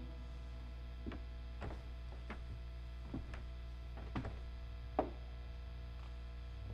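Steady low electrical hum from an idle guitar amplifier, with about half a dozen light knocks and footsteps on a wooden floor, the loudest about five seconds in.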